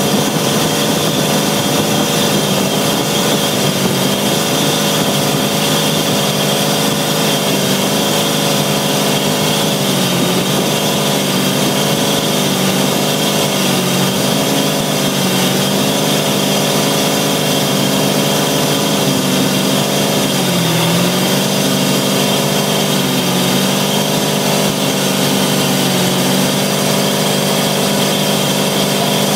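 MerCruiser 350 MAG MPI V8 inboard boat engine running steadily under way, heard close up in the engine compartment. Its pitch holds steady, with a slight dip every two or three seconds.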